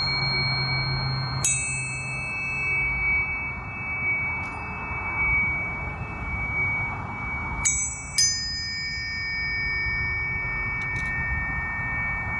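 Planetary tuning forks struck about a second and a half in and twice close together near eight seconds in. Each strike is a brief bright ping that settles into a long, steady ringing tone, and the tones overlap.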